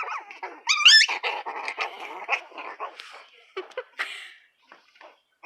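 Two puppies play-fighting: a sharp high yelp that rises in pitch about a second in, then a stretch of scratchy scuffling noise and scattered clicks that thin out toward the end.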